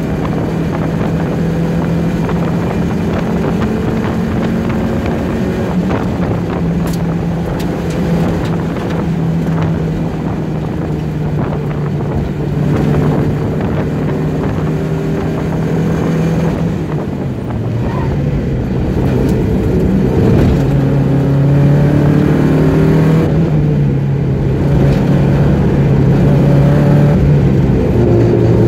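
Mazda Miata's four-cylinder engine running hard at steady high revs on a race track, heard from inside the cabin with wind noise. The engine note drops about seventeen seconds in, climbs back, and falls again near the end as the car slows for a corner.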